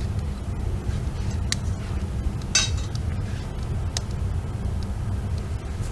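A few sharp clinks of ceramic shards knocking together, the loudest about two and a half seconds in, over a steady low rumble.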